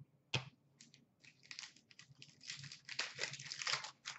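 A single sharp tap, then the crinkling and tearing of a foil trading-card pack wrapper being ripped open.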